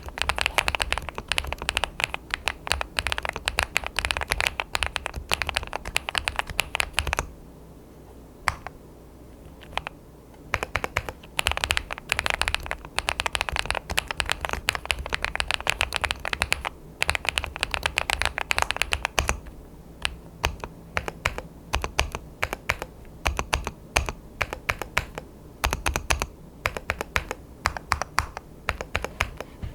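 Typing on an ABKO AR88 aluminium-case custom mechanical keyboard: fast runs of keystroke clicks, breaking off for a few seconds about seven seconds in and turning slower and sparser in the second half.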